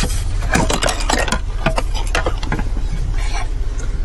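Hard plastic dashboard trim parts clicking and clattering as they are worked loose and handled, an irregular run of sharp clicks and knocks, thickest in the first couple of seconds, over a steady low hum.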